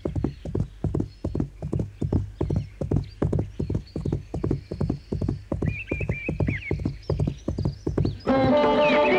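Horse galloping, with a steady run of hoofbeats at about four a second. A horse whinnies about six seconds in, and music with tabla and sitar comes in near the end.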